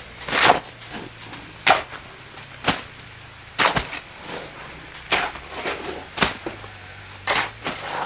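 A steel shovel scooping and tipping wet cement mix into a tarp-lined wooden form. Sharp scrapes and slaps come about once a second as each shovelful is taken up and dropped.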